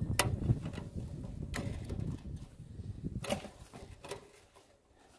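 Steel woven-wire fence wire being wrapped around itself with a hand wire-twisting tool: low rustling handling noise with a few sharp metallic clicks, one every second or so, dying away near the end.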